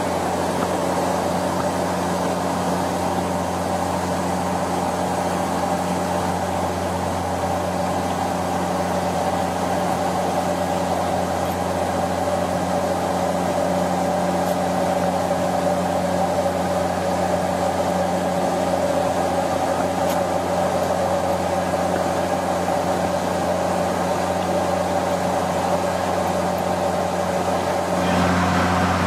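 Steady drone of a Bombardier Dash 8 Q400's two Pratt & Whitney PW150A turboprops and propellers heard from inside the flight deck in flight, a constant low hum under a steady rushing noise. The tone shifts slightly and gets a little louder near the end.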